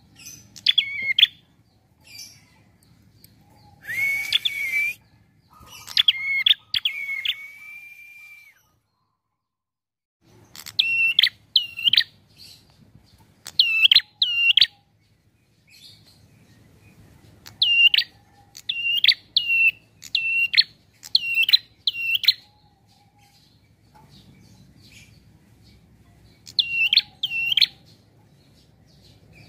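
Caged prenjak (prinia) calling: loud, sharp chirps repeated in quick runs of two to five notes, with pauses of a second or two between runs. A harsher, drawn-out buzzing note comes about 4 s in and again around 6–8 s.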